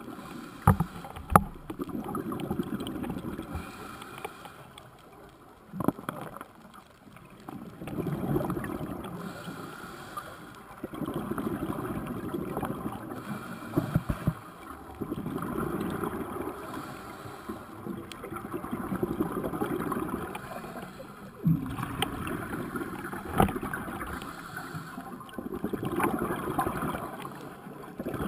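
Scuba regulator exhaust bubbles gurgling past an underwater camera in bursts every three to four seconds, with quieter gaps between breaths. A few sharp knocks on the camera housing stand out.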